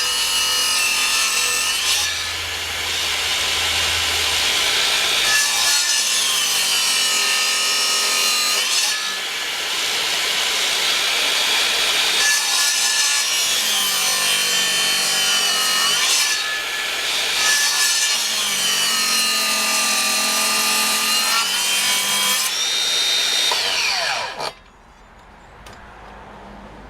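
Circular saw running and cutting, its motor whine sagging in pitch under load and climbing back several times as the blade bites. Near the end it is switched off and the whine falls away as the blade spins down.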